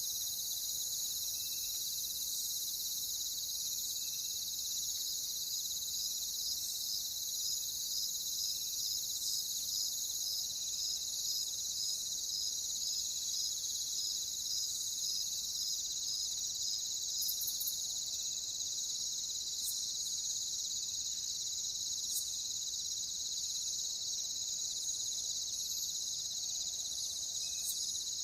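A chorus of crickets chirping, a dense, steady, high-pitched trill with an even pulse running through it. Fainter, lower chirps repeat every couple of seconds beneath it.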